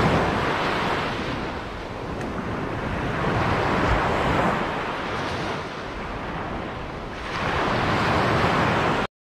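Small Baltic Sea waves breaking and washing up a sandy beach, the surf swelling and ebbing three times a few seconds apart. The sound cuts off suddenly near the end.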